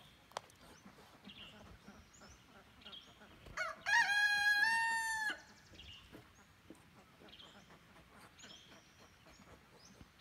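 A rooster crows once, about four seconds in: a single call under two seconds long that rises, holds steady and falls away at the end.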